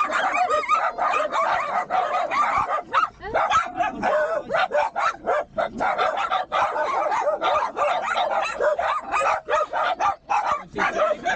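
Several dogs barking and yipping in quick, continuous overlapping bursts, with high-pitched whimpers mixed in.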